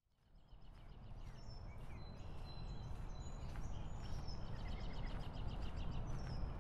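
Outdoor ambience fading in: a steady low rumble with small birds chirping and calling over it, in short high repeated notes.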